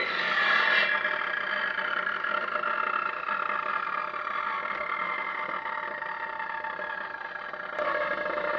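An engine running steadily, its pitch drifting slowly lower. The sound changes abruptly near the end.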